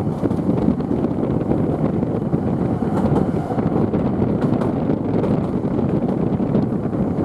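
Toden Arakawa Line streetcar running, heard from inside the car: a steady low rumble of its motors and wheels on the rails, with a few faint clicks.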